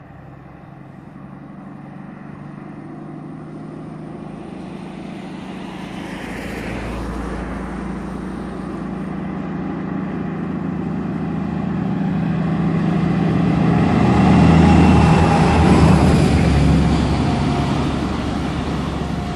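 DB class 218 diesel-hydraulic locomotive hauling a EuroCity train of SBB coaches, approaching and passing beneath. Its engine hum grows steadily louder, is loudest about 15 s in as the locomotive passes, and then the coaches run by.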